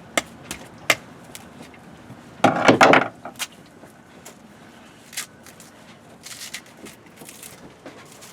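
A screwdriver prying and tearing at a coconut's fibrous husk: scattered sharp clicks and knocks, with a dense, rough tearing burst lasting under a second about two and a half seconds in.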